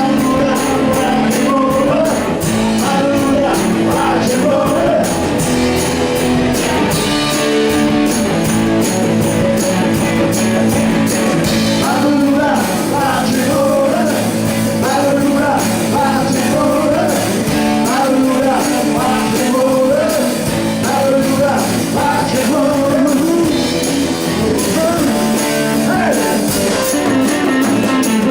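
Rock-and-roll song with a singer over guitar and a steady drum beat.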